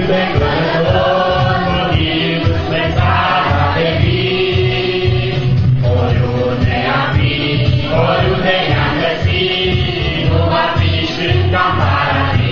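A choir singing a church song, loud and continuous, with a heavy low boom underneath.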